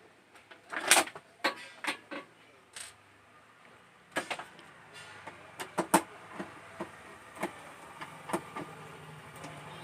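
Irregular clicks and knocks of tools and plastic parts as an LED TV set is being opened, the loudest about a second in and about six seconds in. A faint steady hum comes up in the second half.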